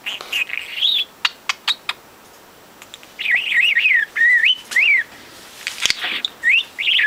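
Pet budgerigar chattering and warbling: a burst of chatter with a few sharp clicks, then a quick run of whistled notes going up and down about three seconds in, and more chirps near the end.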